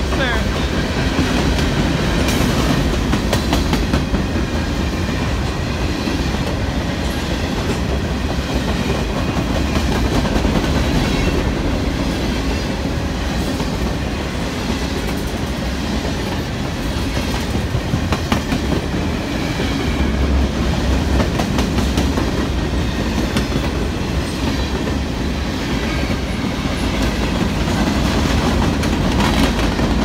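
Freight cars rolling past: a loud, steady rumble of steel wheels on rail, with repeated clacks as the wheels cross rail joints.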